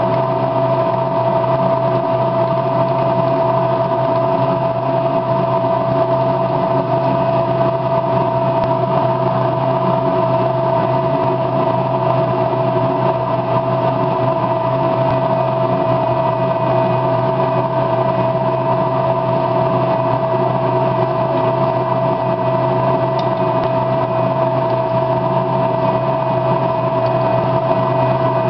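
A steady, unchanging machine drone with a constant pitched hum, like a motor or fan running without a break.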